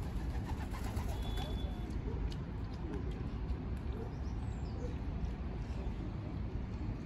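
A few low pigeon coos over a steady, low background rumble.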